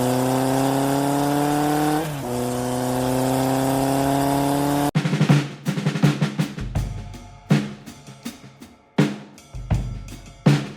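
Intro music: a steady engine-like tone slowly rising in pitch, dipping once about two seconds in, cuts off abruptly about five seconds in, and a heavy drum-kit beat with deep bass drum hits takes over.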